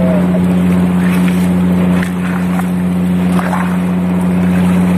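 Steady low hum of ship's machinery, with light splashing as a gloved hand scrubs the strainer plate over a bilge well under shallow water.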